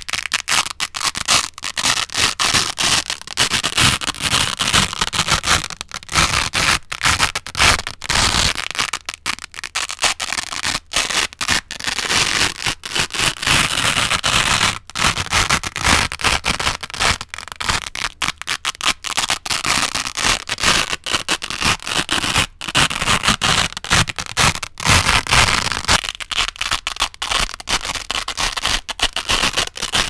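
A grey Velcro patch pressed onto and ripped off the Velcro face of a game disc, over and over: a crunchy, crackling rip with brief breaks between strokes.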